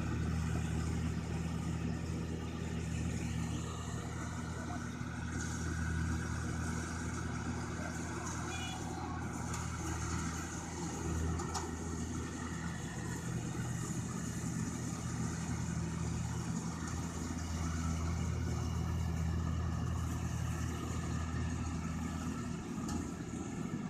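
Rice combine harvester's engine running steadily.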